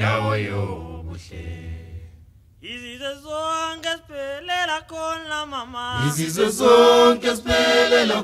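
Background music: an a cappella choir singing a Southern African song in close vocal harmony. The voices grow fuller and louder about six seconds in.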